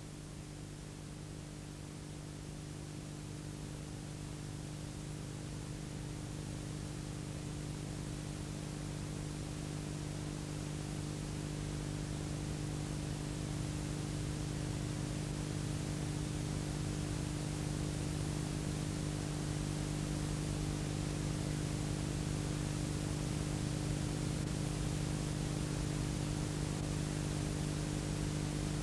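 Steady hiss with a low electrical hum underneath, no other sound, slowly growing louder: the noise floor of an old film soundtrack transfer.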